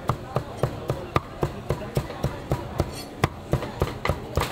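Cleaver chopping roast meat on a chopping block, in sharp, steady strikes about four a second.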